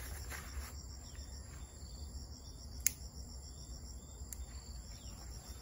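Insects chirping steadily in a fast, high pulsing, with two sharp clicks about a second and a half apart near the middle.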